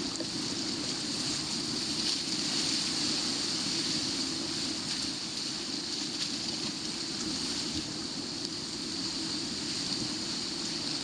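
Steady wash of sea waves against a rocky shoreline: a continuous, even rush with no distinct breaks.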